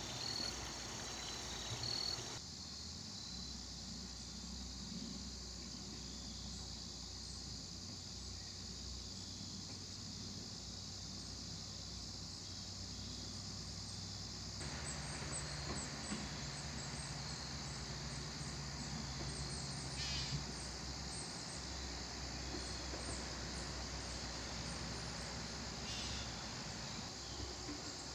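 A steady, high-pitched chorus of crickets and other insects, typical of early fall, with a couple of brief chirps over it.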